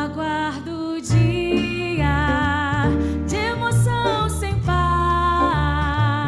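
A woman singing a gospel song in Portuguese with a band: upright bass, acoustic guitar and piano. She holds and glides between notes over plucked bass notes that change about once a second.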